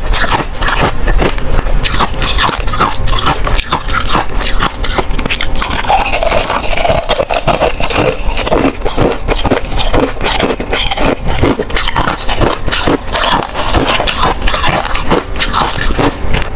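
Ice being crunched and chewed close to the microphone: a loud, unbroken run of rapid cracks and crunches.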